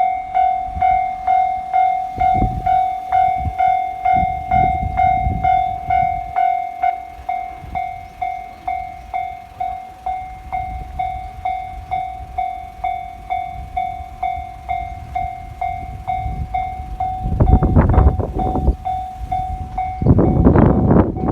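Japanese railway level-crossing alarm dinging in a steady, regular rhythm. About seventeen seconds in, a train runs through the crossing with loud rumbling and clatter, and the alarm stops shortly before the end while the train noise goes on.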